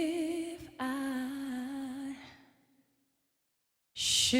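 Unaccompanied female solo voice singing the slow opening line, holding long notes with vibrato. The second note fades out about two seconds in, and after a pause the next phrase begins near the end.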